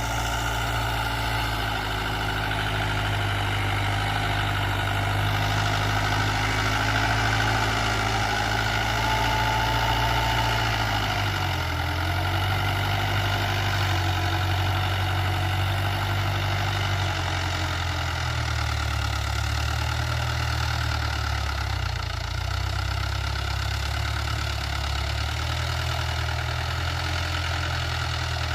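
Mahindra 475 DI tractor's four-cylinder diesel engine running steadily after a full engine rebuild. Its low note shifts slightly about eleven seconds in.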